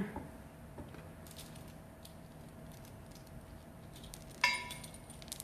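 Small metal brake-mounting hardware (bolts, nuts, spacer sleeves) clinking as it is handled: a few light clicks, then one sharp ringing clink about four and a half seconds in.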